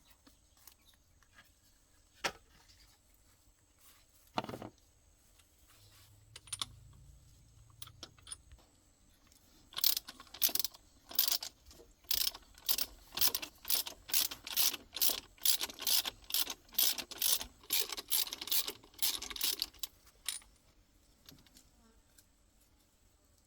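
Two single knocks, then a run of rattling metal clicks, two to three a second for about ten seconds, from a hand tool worked in quick strokes during car repair.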